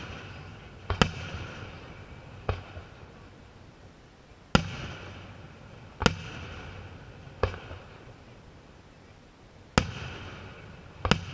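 Aerial firework shells bursting, about seven sharp booms spaced one to two and a half seconds apart, each followed by a fading echo.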